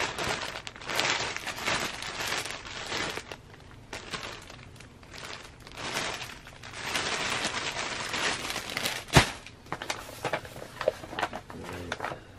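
Packaging being handled, crinkling and rustling irregularly, with one sharp click about nine seconds in.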